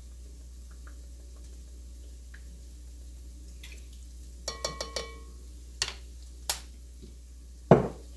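Quiet kitchen room tone, then a spoon clinking a few times against a mixing bowl halfway through, as sauce is tipped from it into ground beef. Two small clicks follow, then a heavier knock, the loudest sound, near the end.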